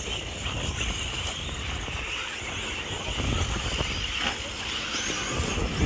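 Radio-control off-road buggies running around a dirt race track, their motors a steady high-pitched drone, with wind noise on the microphone.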